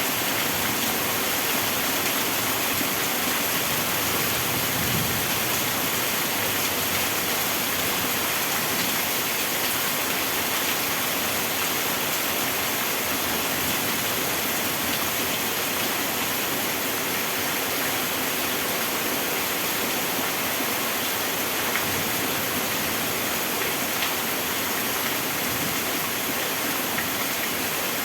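Heavy rain falling steadily, a dense even hiss of water.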